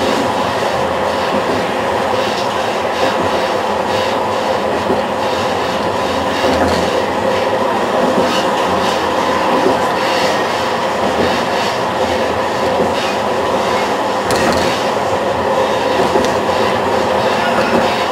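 City tram running along street rails, heard from on board: a steady running noise of wheels and motors with scattered clicks, one sharper click about two-thirds of the way through.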